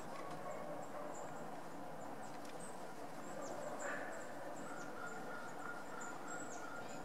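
Woodland ambience with faint, high bird chirps scattered throughout and a steady held tone in the second half.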